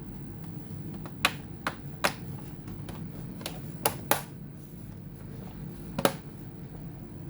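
About seven sharp clicks and taps of small hard parts and tools being handled while working on a laptop's insides, spread over several seconds. A steady low hum runs underneath.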